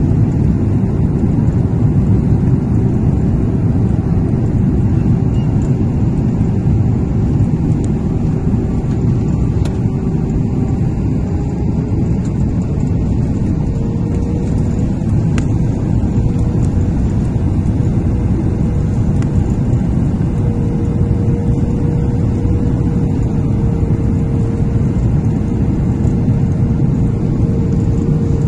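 Steady jet airliner cabin noise in flight: engine and airflow noise heard from inside the cabin by a window seat, with a faint hum that rises slightly in pitch about halfway through.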